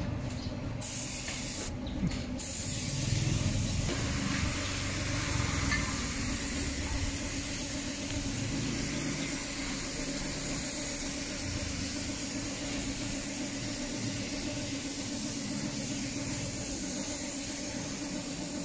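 Gravity-feed compressed-air spray gun spraying wood finish, a steady hiss of air and atomised finish. It starts just under a second in, breaks off briefly around two seconds in as the trigger is released, then runs on steadily.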